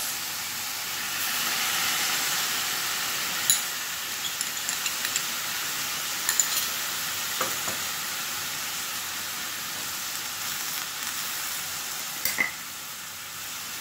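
Broccoli, carrots and red chili sizzling steadily in a hot stainless steel pan as oyster sauce is added, with a few light knocks against the pan.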